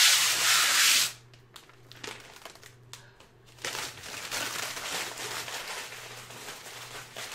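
Thin protective plastic wrapping being peeled and crinkled off an air purifier's front panel: a loud ripping rush in the first second, a few light ticks, then steady crinkling from a few seconds in.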